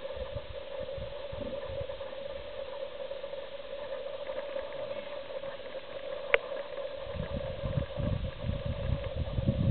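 Safari vehicle engine idling with a steady hum. A single sharp click comes a little past six seconds in, and low, uneven rumbling rises from about seven seconds in.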